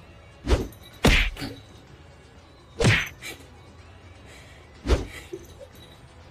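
Four short, sharp thumps, irregularly spaced, the first two close together and the others about two seconds apart.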